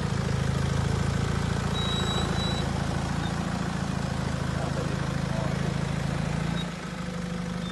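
Nissan Patrol GR's engine running steadily at low revs as the lifted 4x4 crawls through a deep rut. About three-quarters of the way through, the engine note drops and gets a little quieter.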